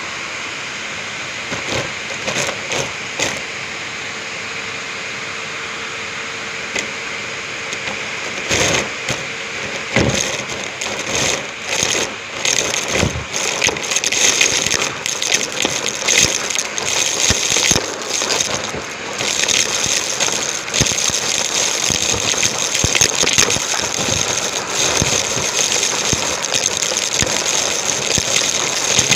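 Numatic James cylinder vacuum cleaner running with a steady whirr; from about eight seconds in, irregular crackles and rattles of debris being sucked up through the hose.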